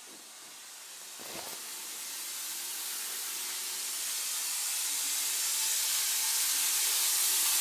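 Water running steadily from a bathroom sink tap, a hiss that grows louder as it comes closer, with a soft knock about a second in.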